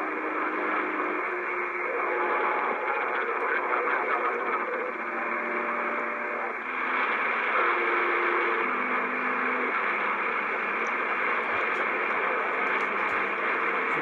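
CB radio receiver hissing with band static, overlaid with steady whistling tones that shift pitch every second or two.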